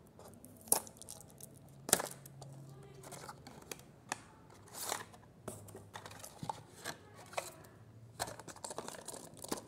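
Cardboard earbud box being handled and opened: the tuck flap pulled open and the inner tray and accessories slid out, with rustling and scraping of card. Sharp clicks and taps, the loudest about a second in and again about two seconds in.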